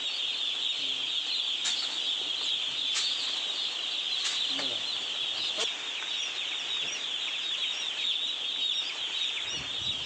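Dense chorus of hundreds of day-old chicks peeping, many short high chirps overlapping into one continuous chatter. Four light clicks come at even spacing in the first half.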